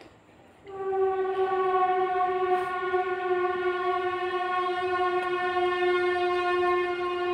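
A single long, steady horn-like tone that starts under a second in and holds, sagging slightly in pitch toward the end.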